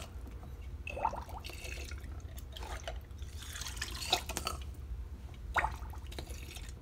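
Battery hydrometer being rinsed in a plastic tub of water: a few short splashes and drips as water is drawn in and squirted out through the tip, over a steady low hum.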